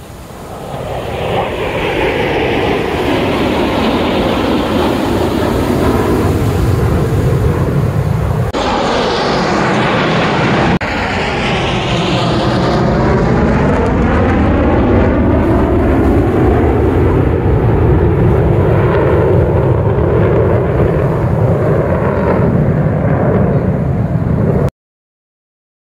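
F-16 Fighting Falcon jets of the U.S. Air Force Thunderbirds flying over in formation: loud, continuous jet-engine noise that builds over the first couple of seconds and sweeps up and down in pitch as the jets pass. The sound jumps abruptly twice near the middle and cuts off suddenly shortly before the end.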